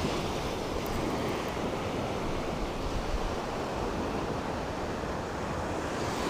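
Ocean surf washing onto the beach, a steady rush of waves, with some wind on the microphone.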